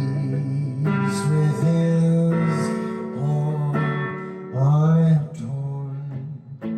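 Music: a slow song with guitar accompaniment and a low voice holding long, wavering notes.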